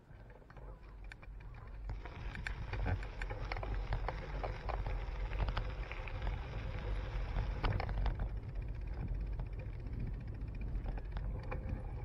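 Mountain bike rolling along a paved trail, picked up by a handlebar-mounted camera: a steady low rumble of wind and tyre noise, with a hiss and many small rattling ticks from the bike and mount.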